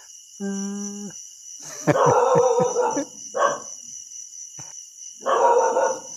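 A white puppy gives a short, steady whine, then barks in three rough bursts: one about a second long, a short one, and another about a second long near the end.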